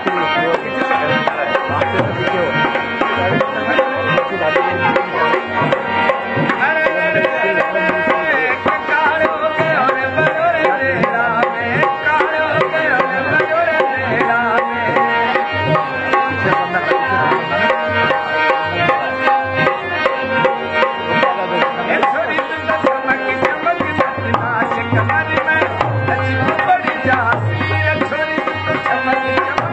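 Rajasthani folk music played on a dholak barrel drum and a harmonium, with a quick, steady drum rhythm under a continuous melody.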